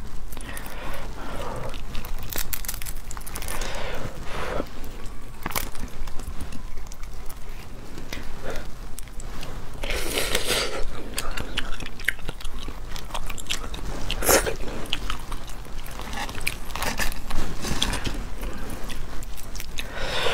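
Cooked starfish being broken apart by hand and eaten close to a clip-on microphone: crackling of the spiny shell as the arms are snapped open, and crunching bites and chewing of the yellow roe inside, with the loudest crunches about halfway through and again a few seconds later.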